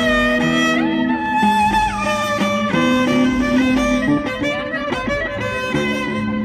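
Music: a melody of held and sliding notes over steady low sustained notes.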